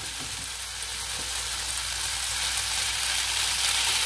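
Drained spaghetti and agretti sizzling in hot oil in a frying pan: a steady hiss that grows a little louder, with a spaghetti spoon stirring through the pasta near the end.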